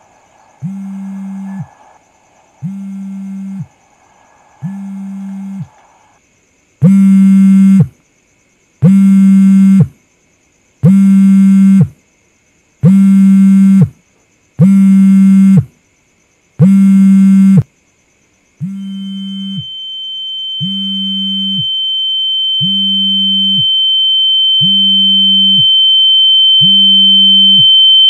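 Mobile phone vibrating for an incoming call, buzzing in pulses about a second long every two seconds; the five middle buzzes are much louder. About two-thirds of the way through, a steady high-pitched tone enters and keeps growing louder.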